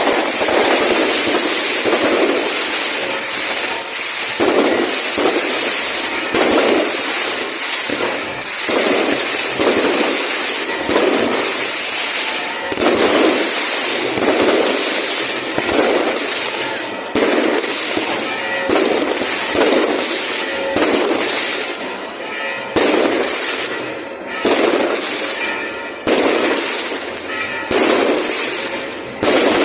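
Fireworks display: dense, continuous crackling with loud bursts going off about every second or two, each fading out before the next.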